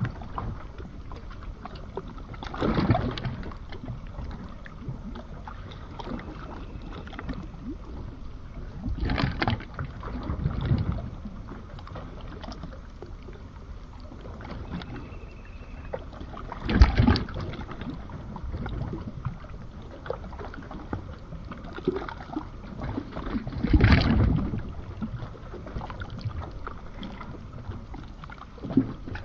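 Seawater washing in waves: a steady low wash with a louder surge rolling in about every six to seven seconds.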